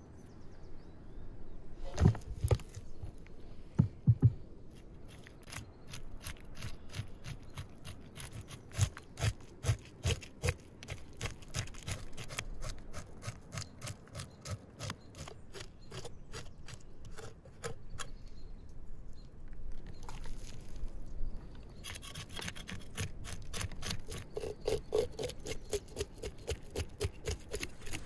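A knife scraping the scales off a whole carp on a wooden cutting board: quick repeated scraping strokes, a few a second. A couple of heavier knocks come about two and four seconds in.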